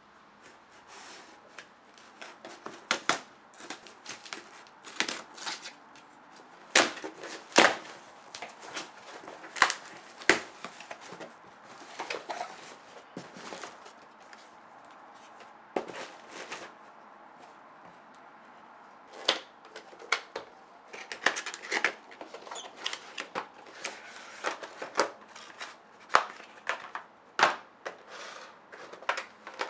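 Packaging being handled and opened by hand: irregular clicks, snaps and rustling, with quieter pauses between bursts of handling.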